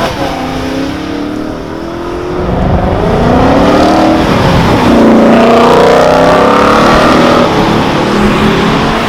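A loud sports-car engine under hard acceleration: its pitch drops at first, then climbs, dips briefly about halfway and climbs again.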